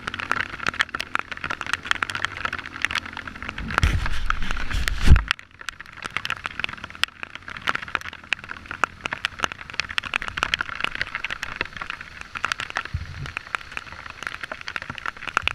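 Dirt bike ridden along a wet, sandy trail, heard from a camera on the rider: a dense pattering crackle, with a louder low rumble from about four seconds in that cuts off suddenly just after five seconds.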